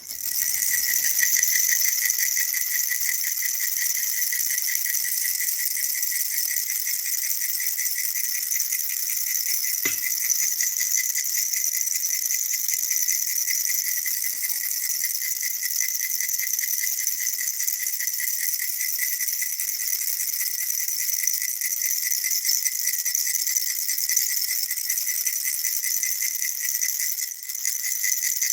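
Baby rattle toy shaken continuously: a dense, steady, high-pitched rattling with a brief dip about a second before the end.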